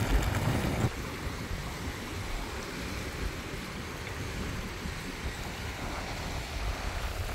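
Wind and surf noise on an open beach: wind buffeting the microphone with a heavy low rumble for about the first second, then a steadier hiss of wind and waves washing ashore.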